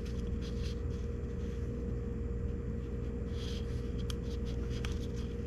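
Faint rustling and handling of a thin sunglasses leash cord and cloth pouch, with a few small clicks in the second half, over a steady low room hum.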